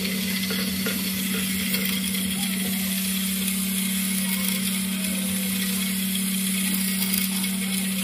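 Small 150 rpm DC gear motor running steadily with an even hum and hiss as it winds in the string that lifts the model bridge deck.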